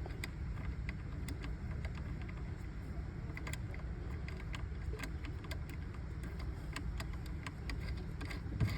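Scattered small metallic clicks and clinks of a hand wrench tightening a nut on a car battery terminal, over a steady low background rumble.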